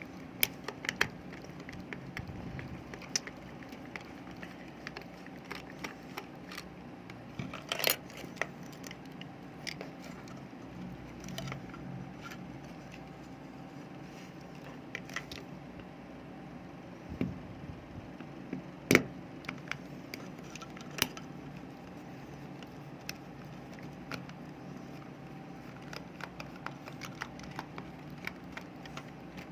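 Scattered small clicks, taps and scrapes of a plastic rechargeable flashlight's casing and parts being handled and pried apart, with a few sharper snaps spread through.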